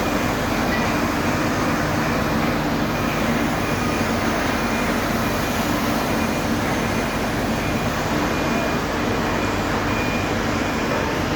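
Steady mechanical drone with a low hum and a continuous rushing noise, unchanging throughout.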